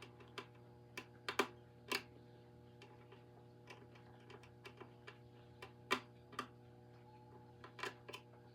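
Scattered sharp plastic clicks and taps at irregular intervals, from batteries being handled and fitted into a toy carousel's battery compartment.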